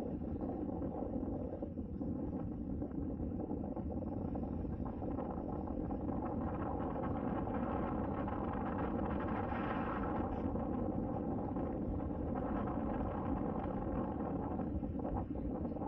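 Small red Perodua Axia hatchback rolling slowly, heard from a camera mounted on its roof: a steady rumble of wind on the microphone and road noise, which swells briefly about ten seconds in.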